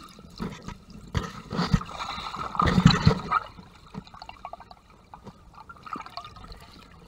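Muffled water sloshing, gurgling and bubbling heard underwater through a camera housing, with a louder stretch of splashing from about one to three and a half seconds in.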